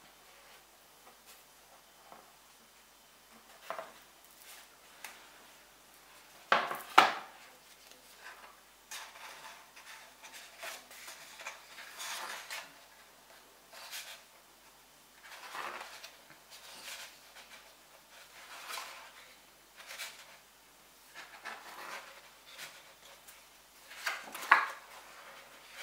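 Pages of a hardcover art book being opened and turned by hand on a wooden table: repeated paper swishes and rustles, with two sharp knocks about seven seconds in and another loud one near the end.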